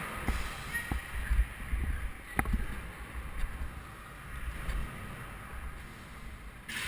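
Wind buffeting the microphone on a scooter ride, a low gusting rumble, with a few sharp knocks: one just under a second in and a louder one about two and a half seconds in.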